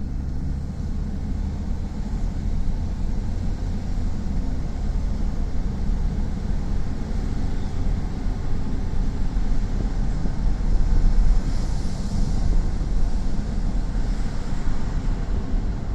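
Steady low rumble of wind buffeting the microphone on an open beach, with a faint hiss of surf or wind higher up that swells briefly about two-thirds of the way through.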